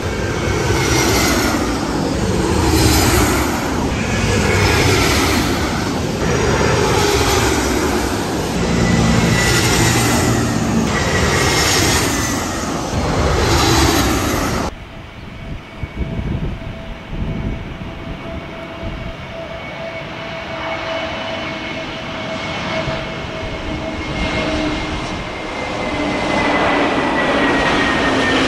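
A loud, rushing roar with a falling sweep about every two seconds cuts off abruptly about halfway through. After it, the steady whine of jet airliner engines, two tones sinking slowly in pitch, grows louder near the end.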